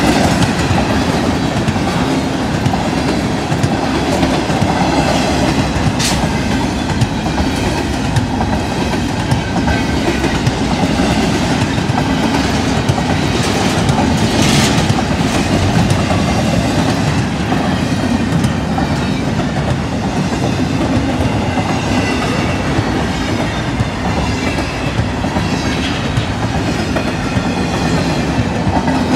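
A freight train of empty double-stack intermodal well cars rolls past at speed, giving a steady loud rumble of wheels on rail with rattling cars. One sharp click comes about six seconds in.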